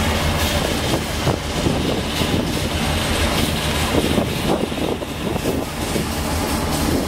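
Steady low drone of a car ferry's engines and machinery under way, with wind buffeting the microphone on the open deck.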